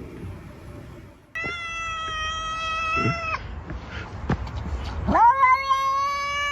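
A cat giving two long, drawn-out meows. The first starts about a second and a half in, and the second slides up into a long held note about five seconds in.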